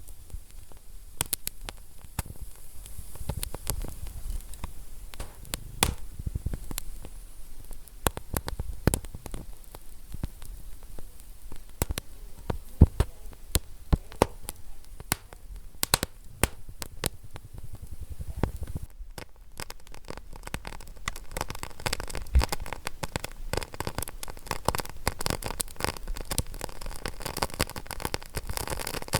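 Wood fire crackling in a fireplace: irregular sharp pops and snaps over a low, steady rumble of burning logs.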